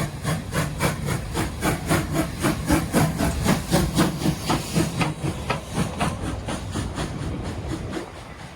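Train running, with a fast, even rhythm of about four to five beats a second over a hiss. It thins out after about five seconds and drops away near the end.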